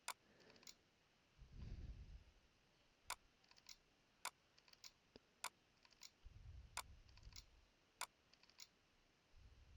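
Faint, sharp single clicks at a computer, about one every second or so, as a mouse is clicked through files, with a few softer clicks and three brief low rumbles between them.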